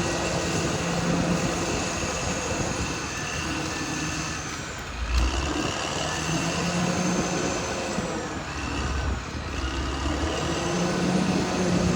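Caterpillar D6R XL bulldozer's diesel engine running under changing load, its note dropping and recovering twice, with a steady high whine from the machine above it.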